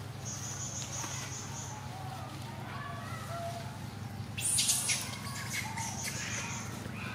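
Outdoor ambience in leafy undergrowth: a steady high-pitched buzz that comes twice, each time for about a second and a half, with faint chirps between. About four and a half seconds in there is a brief rustle, the loudest moment, as the macaques shift among the leaves.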